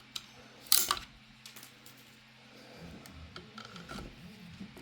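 Plastic support material snapping off a 3D print, with one sharp snap just under a second in and a few smaller clicks and handling noise after it.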